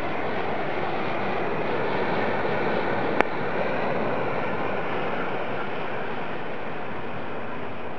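Cooked potassium nitrate and sucrose smoke bomb burning with a steady rushing hiss, with one sharp click about three seconds in.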